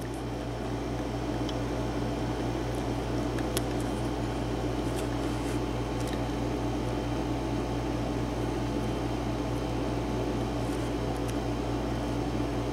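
Small room air conditioner running with a steady hum, with a few faint light clicks over it.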